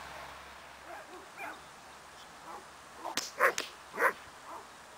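German Shepherd barking in short bursts during protection training, two loud barks in the second half. A few sharp cracks come just before and between the loudest barks.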